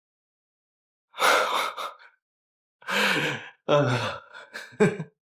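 A person's breathy gasps and sighs, four in a row with silent gaps between, some voiced and falling in pitch.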